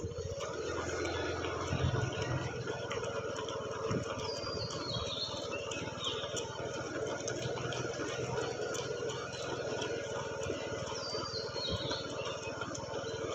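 Roadside outdoor ambience: a steady low rumble and hiss, with a bird calling twice, each call a quick run of high notes falling in pitch.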